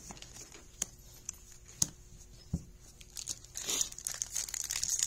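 A Magic: The Gathering collector booster pack's foil wrapper crinkling as it is cut open with a knife, starting about three seconds in and growing busier toward the end. Before that, a few light clicks of cards being handled.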